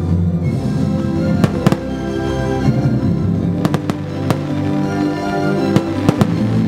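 Fireworks going off in a series of sharp bangs, some in quick pairs, over loud sustained music.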